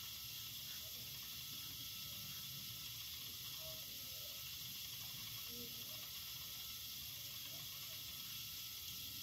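Steady, even hiss of background room tone and recording noise, with no distinct sounds standing out.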